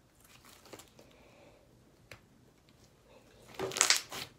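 Mostly quiet room tone with a faint click about two seconds in; near the end, a short loud squishing, crackling handling noise as blue homemade slime is squeezed in the hands.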